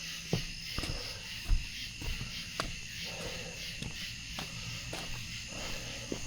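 Night insect chorus of crickets, a steady high-pitched trilling, with irregular footsteps and a few soft knocks, the loudest about a second and a half in.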